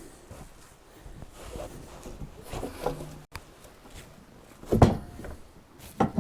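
Irregular knocks and thumps of wooden boards and sawmill fittings being handled, with the loudest thump about five seconds in.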